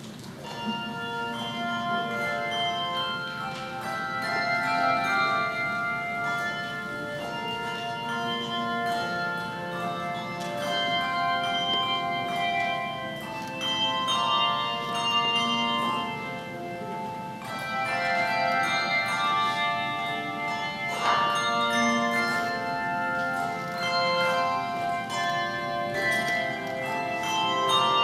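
Handbell choir ringing a hymn arrangement: many bells struck together in chords and left to ring, the music starting about half a second in.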